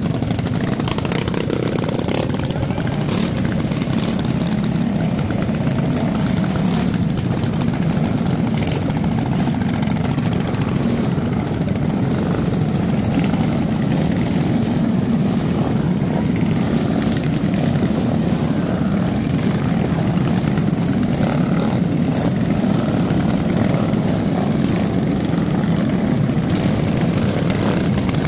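Several small mini-bike engines running steadily at low riding speed, a continuous low buzz with no gaps.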